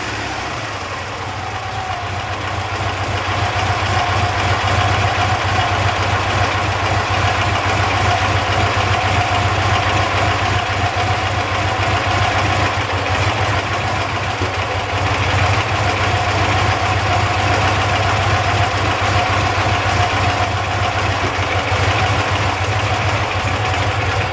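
Dnepr MT 10-36 motorcycle's opposed-twin four-stroke engine running steadily at a fast idle, a little louder after the first couple of seconds. It runs unevenly between the cylinders, and its carburettors are being adjusted.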